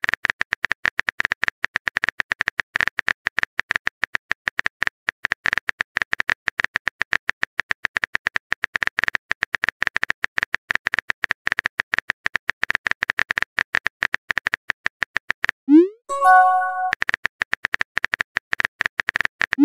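Rapid simulated keyboard-typing clicks from a texting-story app as a long message is typed out letter by letter. About three-quarters of the way through, the typing is broken by the app's message-sent sound: a short rising pop followed by a few chiming tones. The clicks then resume.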